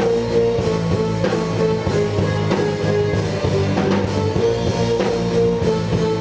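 Rock music from a band with drum kit and guitar: held notes over a steady drum beat.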